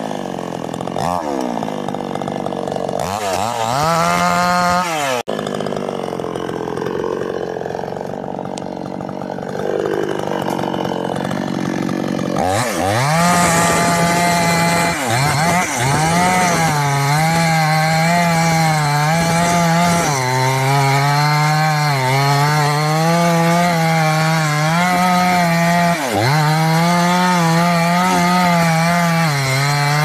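Two-stroke chainsaw cutting into a wooden stump. The engine revs up and down in repeated sweeps and falls to a lower, uneven note for several seconds in the middle. It is then held at high revs, sagging briefly now and then as the chain bites into the wood.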